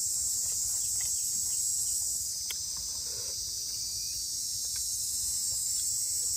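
A steady, high-pitched chorus of insects, with a few faint clicks and rustles from hands tearing a pancake and handling banana leaves.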